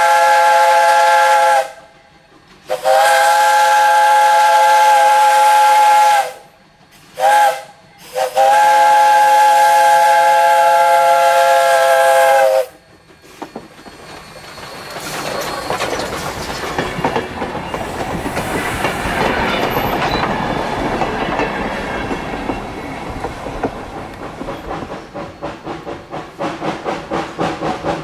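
Steam locomotive's multi-note whistle sounding the grade-crossing signal: long, long, short, long. The saddle-tank engine then passes close with steam hiss and running noise, with a fast rhythmic clatter of the train near the end.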